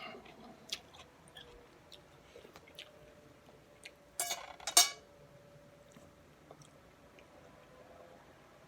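Close-miked chewing and eating of pho: small wet mouth clicks and smacks, with one louder burst lasting about half a second around four seconds in.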